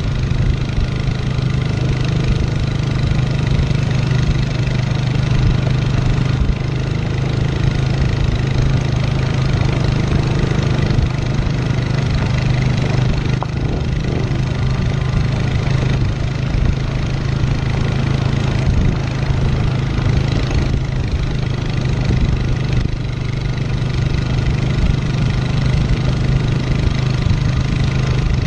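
Four-wheeler ATV engine running steadily at an even pace as it tows a dirt bike on a strap, with continuous tyre and wind noise from the gravel road.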